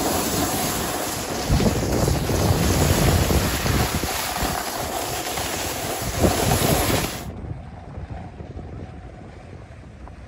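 Wind rushing over the microphone and a snowboard scraping over packed snow while riding downhill. About seven seconds in, the loud rush cuts off suddenly to a much quieter one.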